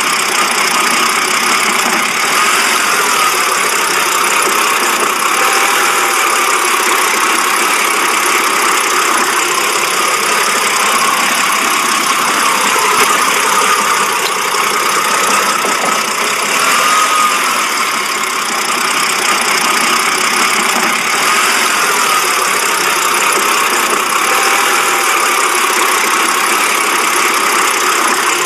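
BMW engine idling roughly. A steady running sound with a slight waver.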